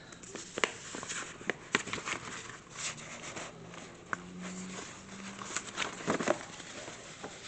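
Faint handling noise: scattered light clicks and rustling, with a stronger click about six seconds in.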